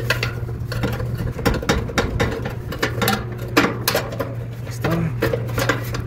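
Irregular clicks and knocks of a clothes dryer's idler pulley and tensioner bracket being handled and fitted by hand beside the drive motor, with a steady low hum underneath.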